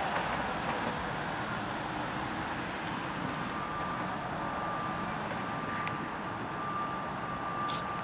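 Steady city traffic noise, an even hum with no single vehicle standing out. A faint steady high tone joins about three seconds in.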